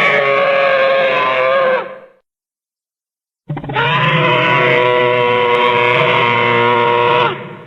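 Two dragon-roar sound effects: the first fades out about two seconds in, then after a gap of dead silence a second roar lasts about four seconds.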